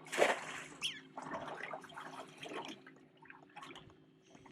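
Water sloshing and splashing in irregular bursts, loudest just at the start and fading off, over a faint steady hum.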